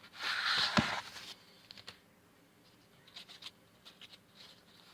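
Rustling with light clicks and taps as small items are handled on a workbench. A soft rustle comes first with one sharp click in it, then scattered faint ticks.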